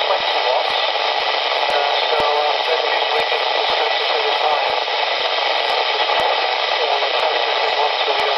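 Steady hiss from a 2-metre FM radio receiving a weak station, with a faint voice buried in the noise; the signal is only just readable.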